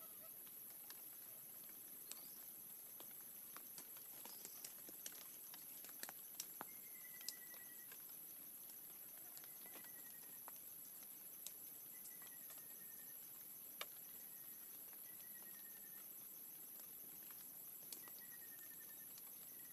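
Sharp clicks and snaps of sticks and twigs being handled on the forest floor while a snare fence is set, scattered irregularly with a cluster about six to seven seconds in. Behind them is a steady high insect drone, and a short falling call repeats every couple of seconds.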